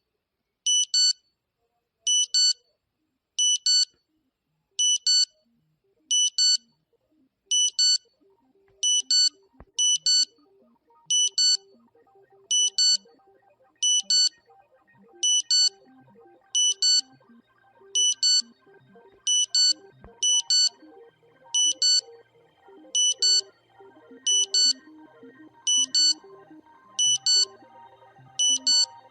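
Mock emergency alert system (EAS) alarm: pairs of short, high-pitched beeps repeating evenly about every second and a half, with quiet music fading in underneath about a third of the way in and growing louder toward the end.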